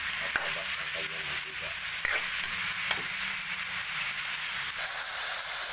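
Pork cubes frying with onion in a wok, a steady sizzle, while a metal spatula stirs them, scraping and knocking against the pan a few times.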